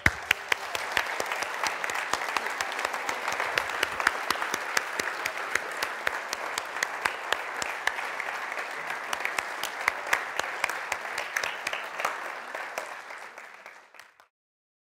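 Congregation applauding: dense, steady clapping that starts at once and dies away near the end.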